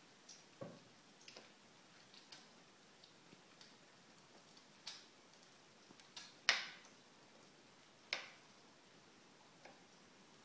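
Knife cutting on a chopping board: slow, irregular taps, roughly one a second, with one louder knock about six and a half seconds in.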